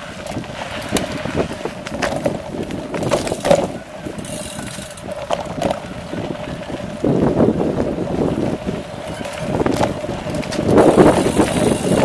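Mountain bike rolling fast over a rough dirt singletrack: tyre noise on the dirt and stones with constant clicking and rattling of the bike over bumps, and wind on the microphone. It gets louder and rougher about seven seconds in and again near the end.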